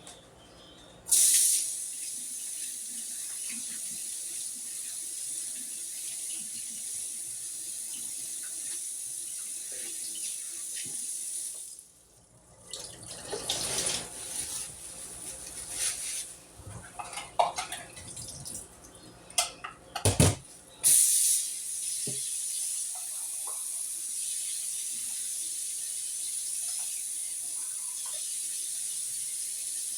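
Water running from a tap, turned on abruptly about a second in and shut off near the middle. A stretch of irregular knocks and clatter follows, then the water runs again from about two-thirds of the way through.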